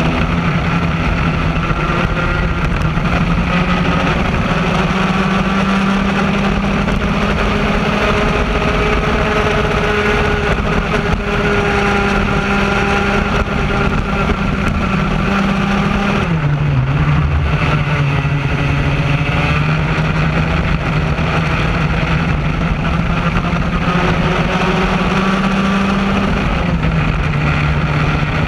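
Raket two-stroke kart engine running at full race revs, heard from onboard the kart, its pitch creeping up along the straights and dropping sharply about 16 seconds in and again near the end as the driver lifts to slow for corners. A steady rush of noise runs underneath.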